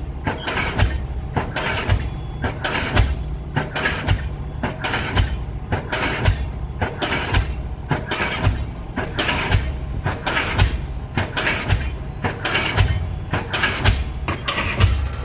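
Diesel pile-driving hammer running, a steady rhythm of sharp blows, each one its combustion stroke driving the pile, over a low steady engine rumble.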